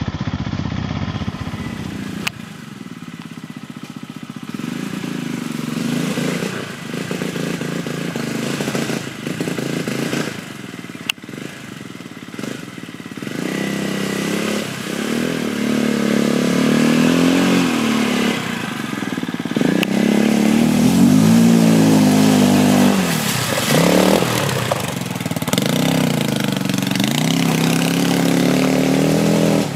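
Quad bike engine revving up and down as the ATV is ridden over muddy dirt tracks, its pitch rising and falling with the throttle. It is louder and revs harder from about halfway through.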